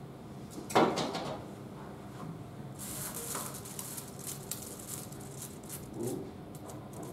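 Small iron rods in a magnetic field demonstrator rattling and clicking as two magnets are moved about on it, over the steady hum of an overhead projector. One loud knock comes about a second in.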